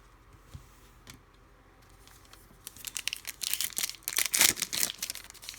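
Foil trading-card pack wrapper crinkling and being torn open, quiet at first and then a dense run of crackles and rips in the second half.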